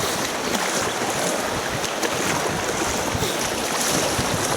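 Steady rush of river water around a paddled whitewater raft.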